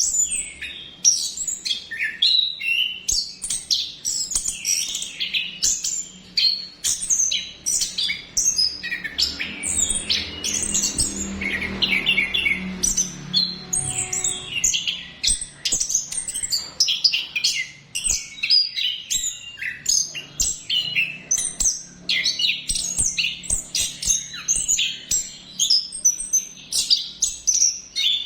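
Orange-headed thrush (anis kembang) singing a long continuous run of rapid, varied chirps and whistled phrases, with almost no break between phrases.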